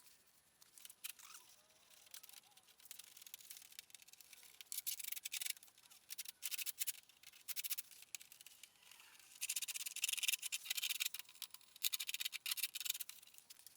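Razor blade scraping along the freshly sawn edge of a bumper cover to smooth it, in repeated short strokes. The strokes are sparse at first and come in quicker, denser runs later on.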